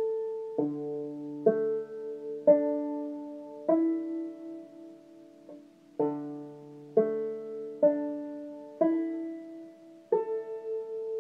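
Five-string banjo, capoed at the 2nd fret and just retuned to double D tuning, strummed about ten times in open chords that ring and fade between strokes, checking the new tuning.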